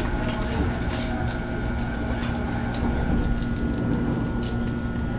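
Interior of a JR Narita Line commuter electric train running along the track: a steady low rumble with a constant hum and light scattered ticks.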